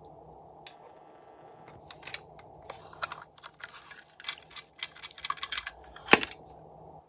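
Slime being squeezed and pressed by hand, giving an irregular run of sharp crackling clicks and pops that grows busier from about two seconds in, with the loudest pop about six seconds in.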